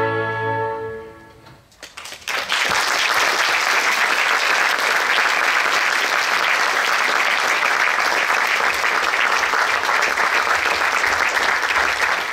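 Orchestral ballet music ends on a held chord that dies away, then about two seconds in the audience breaks into steady applause, which cuts off suddenly near the end.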